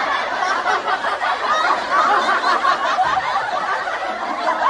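A crowd laughing and chuckling, many voices together like a laugh track.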